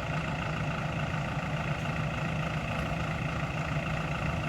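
Heavy vehicle engine running steadily: a low drone with a steady higher whine over it.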